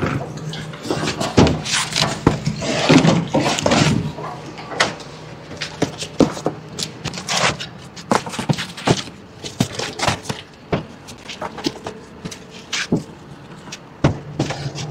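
Seed potatoes knocking and clattering as they are dumped and handled, a dense run of knocks for the first few seconds, then scattered clacks. A steady low hum runs underneath.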